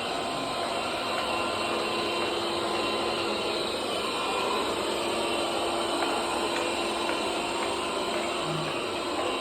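bObsweep robot vacuum running with a loud, steady mechanical noise and a constant hum.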